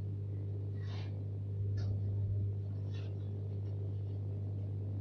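Steady low electrical hum of quiet room tone, with three faint, brief handling rustles about one, two and three seconds in.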